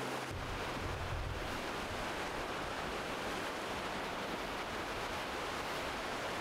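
Ocean waves washing onto a rocky shore as a steady rush of surf.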